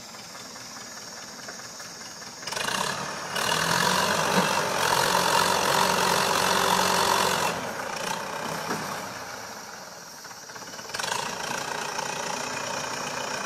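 An engine running steadily, with no music over it. It grows louder through the middle, eases off, then picks up again near the end.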